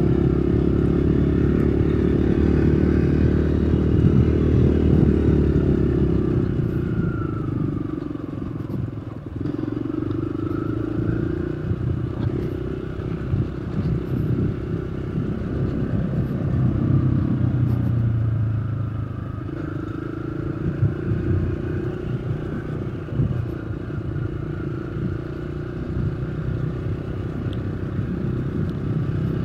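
Engine of the vehicle being ridden, running under way with road and wind noise. Its pitch holds steady at first, then sinks and climbs back a few times.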